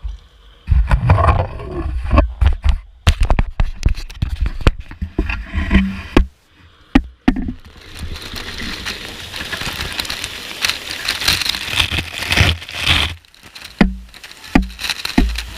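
Air rushing from a drained hot tub's jets, buffeting the microphone with low rumbling and scattered knocks and rattles. About halfway through it turns into a steadier, louder hissing rush.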